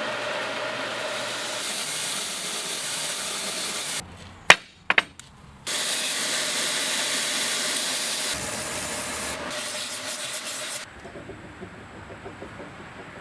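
Steady abrasive rubbing noise in two long bouts, broken in the middle by three sharp knocks, then dropping to a faint low noise near the end.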